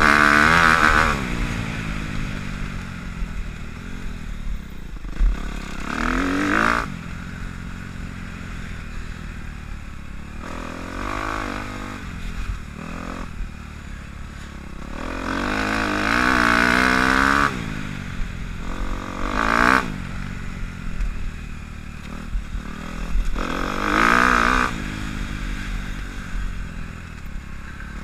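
Dirt bike engine being ridden on a trail, revving up and dropping back repeatedly: loud bursts of throttle at the start and about six, sixteen and twenty-four seconds in, with quieter running between.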